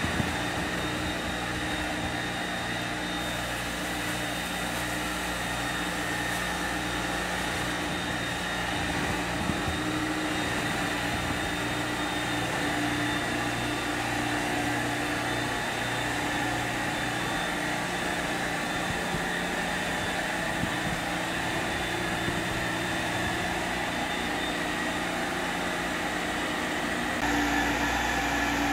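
Carpet extractor's vacuum motor running steadily with a steady whine as the cleaning wand is drawn across an area rug, sucking the rinse water back out of the pile. Near the end the sound shifts and gets a little louder.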